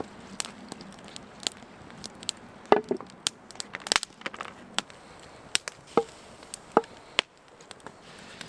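Wood fire crackling and popping in an irregular series of sharp snaps, mixed with a few clinks of a plate, knife and skillet being handled. The loudest snaps fall a little under three seconds in and about four seconds in.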